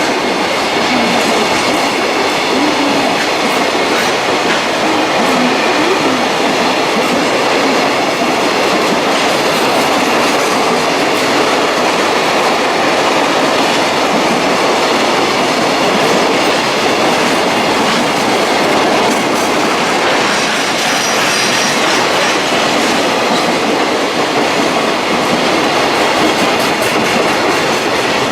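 A train running past on the rails: a loud, steady noise of wheels on track.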